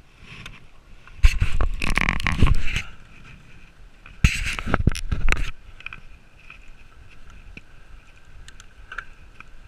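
Mountain bike, a YT Capra, riding over bumpy grass: two loud spells of rattling and rumble, the first about a second in and the second after about four seconds, with quieter rolling in between.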